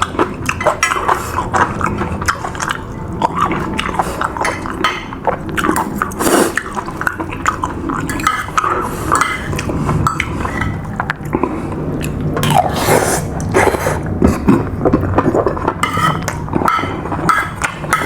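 A person eating: chewing food, with a spoon clinking against a plate.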